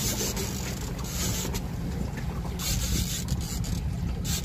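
Mercury outboard motor running steadily at trolling speed on a small aluminium boat. Gusts of wind on the microphone come and go several times over it.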